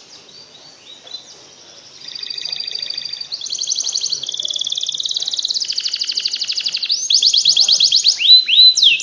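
Canary singing: a string of fast trills, each a run of rapidly repeated high notes, switching to a new trill about every second. The song is faint at first and turns loud about two seconds in, with a couple of rising swoops near the end.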